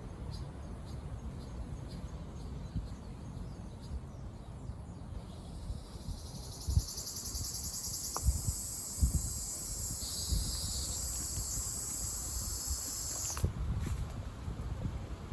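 Ryukyu large brown cicada (Graptopsaltria bimaculata) singing: after a few faint ticks, a high buzzing song starts about five seconds in, swells, holds steady and cuts off suddenly near the end.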